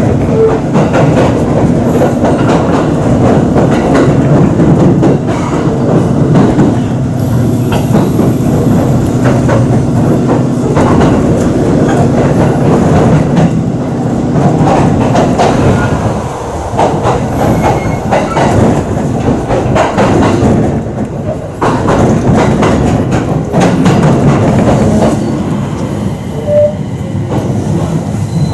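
Electric train heard from inside the carriage, running into a station: a steady rumble of the running gear, with wheels clicking over rail joints and points, easing off as it slows to arrive.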